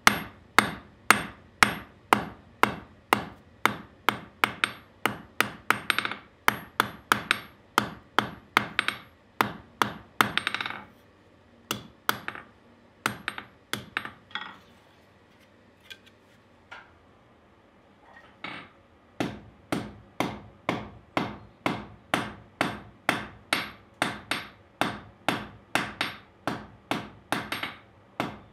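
Blacksmith's hand hammer striking a hot steel rod on an anvil, drawing out a point: steady, even blows at about two to three a second. About a third of the way in the hammering breaks off for several seconds with only a few scattered blows, then resumes at the same steady pace.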